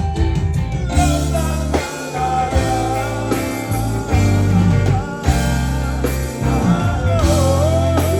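Live reggae band playing an instrumental passage: a heavy steady bass line under a lead melody line that bends up and down in pitch.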